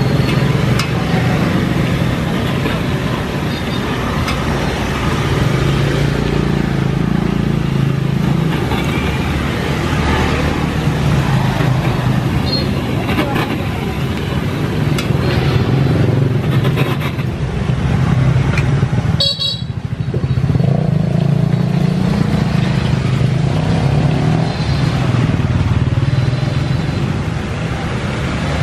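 Refrigeration vacuum pump running with a steady low drone as it evacuates a refrigerator's R600a sealed system, with a short break about two-thirds of the way through.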